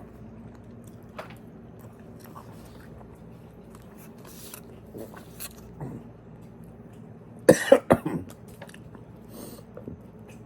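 A man coughing hard, a quick run of about three coughs some seven and a half seconds in, from ground beef going down the wrong pipe while eating; soft chewing sounds before it.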